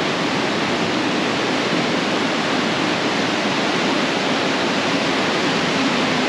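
Steady rush of a river in flood, running high and fast with rainy-season flash-flood water.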